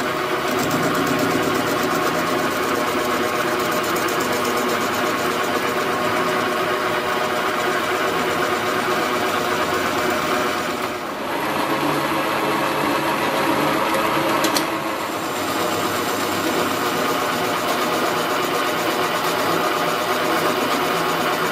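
Metal lathe running steadily while its cutting tool faces the end of a steel bar, turning a new shaft for a 32-ton hydraulic jack. The sound dips briefly about halfway through.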